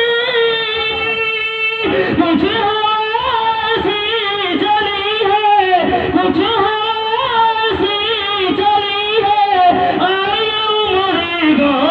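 A man singing Urdu devotional verse unaccompanied, in long held, wavering notes with ornamented runs, with a short break between phrases about two seconds in.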